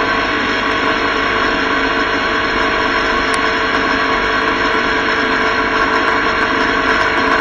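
Motorcycle engine running steadily at highway cruising speed, mixed with constant wind and road noise picked up by a vehicle-mounted action camera.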